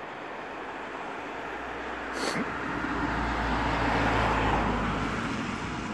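A vehicle passing with a low rumble that swells to a peak about four seconds in and then fades, with a single sharp click about two seconds in.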